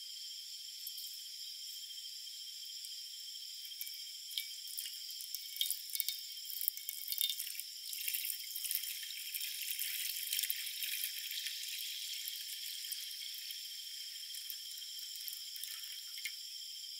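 Water poured in a thin stream from a metal flask into a non-stick frying pan, splashing and trickling. It starts about four seconds in, is fullest in the middle and thins out near the end, over steady insect chirring.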